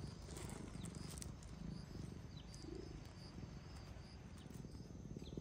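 Domestic cat purring steadily, close up, a low continuous rumble.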